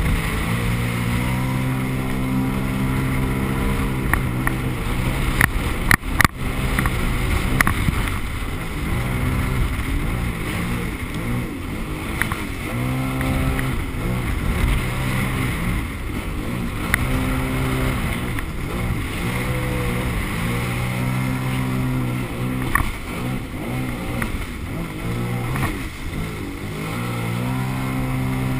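Jet ski engine running under way, its pitch rising and falling again and again as the throttle is worked, over a steady rush of wind and water spray. A few sharp knocks come about six seconds in.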